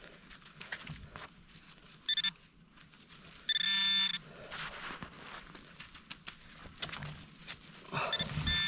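Metal detector sounding its electronic target tone over a buried metal target: a brief beep about two seconds in, a longer beep near four seconds, and another starting near the end. Faint clicks and scrapes fall between the beeps.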